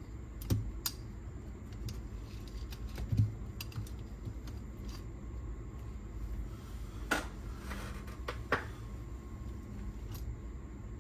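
Scattered small clicks and taps from cassette-deck parts and tools being handled on a workbench, the sharpest few about seven to nine seconds in, over a low steady background hum.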